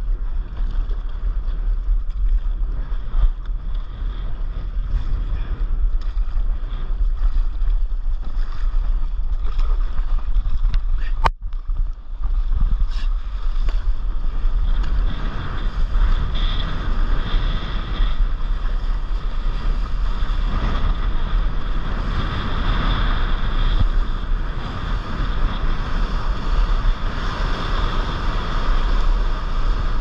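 Wind buffeting an action camera's microphone over water splashing around a stand-up paddleboard; the rushing water grows louder in the second half as the board rides a breaking wave. A brief sudden cut a little after ten seconds in.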